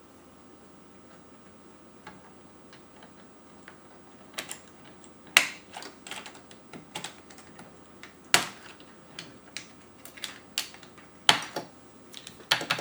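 Plastic keycaps clicking on an Amiga keyboard as they are fitted and pressed: scattered sharp clicks, a few loud ones, after a quiet start, turning into a quick run of key presses near the end.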